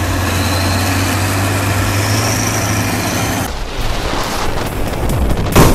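Engine running steadily, with a steady low hum. About three and a half seconds in the sound turns noisier and choppier. A single loud thump comes near the end.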